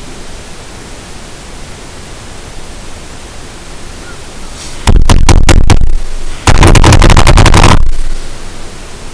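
Steady hiss, which the uploader takes for a strange buzzing noise in her bedroom. About five seconds in, two loud bursts of rapid crackling, each a second or so long, clip the recording.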